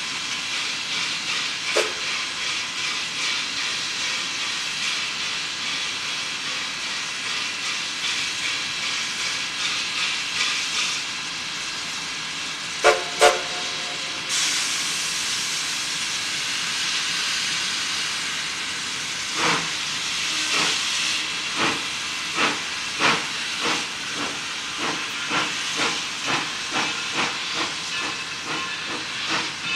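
1884 Cooke-built Colorado & Southern 2-6-0 steam locomotive No. 9 standing with steam hissing. It gives two short whistle toots about 13 seconds in, then pulls away with exhaust chuffs that quicken as it gets under way.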